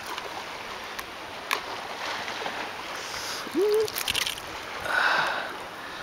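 Handling noise as a caught largemouth bass is taken out of a landing net on a boat deck: scattered knocks and rustles, a brief rising squeak about three and a half seconds in, and a rush of noise near the end, over faint water lapping.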